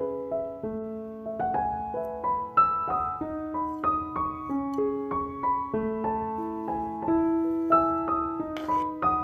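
Background piano music: a melody of single notes moving at an easy pace over held lower notes.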